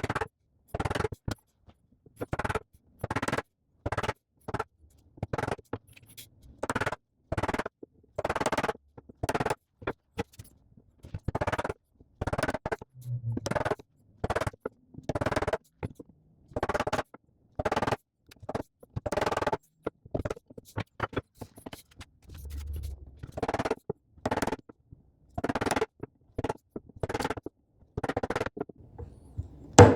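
Hand saw cutting wood in a steady rhythm of rasping strokes, a little more than one stroke a second, pausing briefly now and then.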